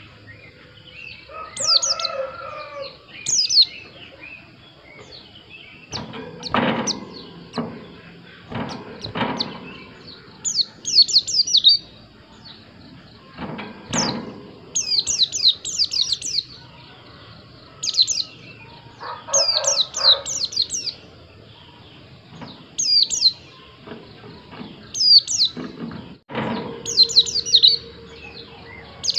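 White-eye (pleci) chirping: quick clusters of short, high, steeply falling notes repeated throughout, with a few lower calls and several sharp knocks in between.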